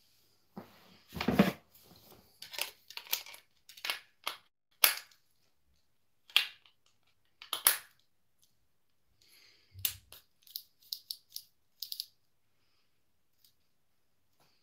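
Handling noises from a spool of fishing line being turned over and fiddled with in the hands: a string of short clicks, taps and rustles, with a louder knock about a second in and a quick run of clicks a little past the middle.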